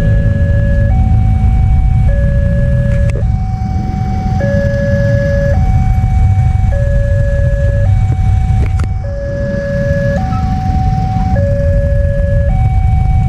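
Indonesian railway level-crossing warning siren sounding its electronic two-tone alarm, a lower and a higher tone alternating about every second and a quarter, to warn that a train is coming and the barrier is down. Under it runs a steady low rumble, with two short clicks.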